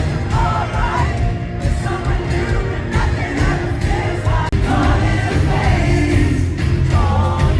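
Live pop band performing: amplified music with a steady low beat and a lead vocal, with the crowd singing along.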